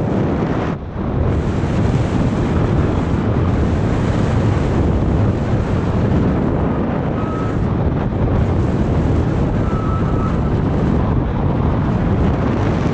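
Wind rushing over the microphone of a paraglider in flight: a loud, deep, steady rush that eases briefly about a second in.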